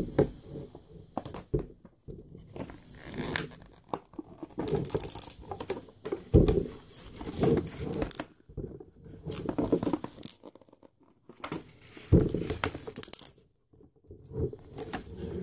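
Clear plastic wrapping being torn and peeled off a rolled table runner, crinkling in irregular bursts with short pauses in between.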